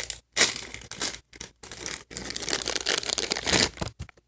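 Crinkly plastic toy packaging being torn open and crumpled by hand in irregular bursts with short pauses, as a small doll is unwrapped.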